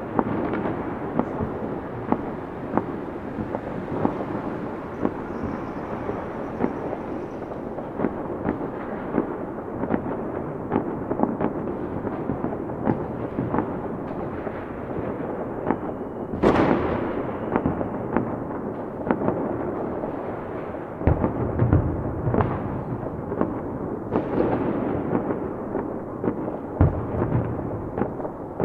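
Fireworks going off in a continuous barrage: dense crackling and rapid popping throughout, with one very loud bang a little over halfway through and deeper booms mixed in during the last third.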